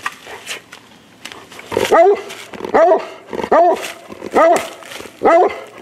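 Redbone coonhound barking up a tree: about five loud barks, a little under a second apart, starting about two seconds in. It is his tree bark, a sign that he smells game up the tree, which the hunters think might be a second raccoon in a den tree.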